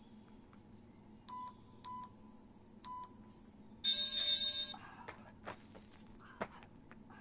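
An electronic timer giving three short beeps and then a longer, louder beep: a countdown and start signal for a one-minute burpee set. After it come scattered scuffs and taps of hands and feet on gravel as the first burpee starts.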